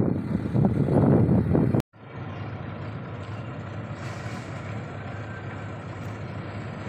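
Truck engine running loud and rough as the lorry hauling a tracked paddy combine harvester drives up. The sound drops out just under two seconds in, and a steady, quieter engine idle follows.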